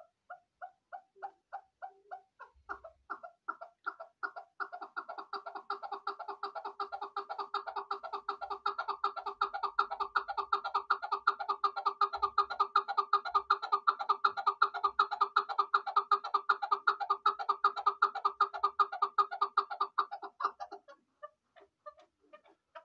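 Caged chukar partridge calling: a series of repeated 'chuck' notes, slow at first, then speeding up into a fast, louder chatter about four seconds in, which stops abruptly near the end.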